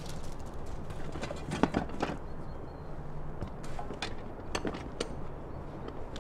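Rustling and scattered light clinks of a bag of tools being rummaged through, over a low steady hum.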